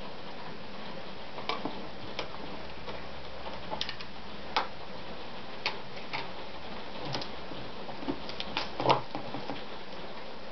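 Scattered small clicks and light knocks of hands working at a sewing machine, threading it and setting leather under the presser foot, with the machine itself not running. The clicks come at irregular intervals over a steady low hum, the loudest knock near the end.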